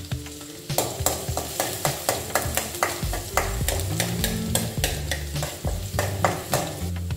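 A perforated steel ladle scraping and clacking against a metal kadai, about three or four strokes a second from about a second in, as it stirs chopped garlic frying in a little hot oil. The oil sizzles under the strokes.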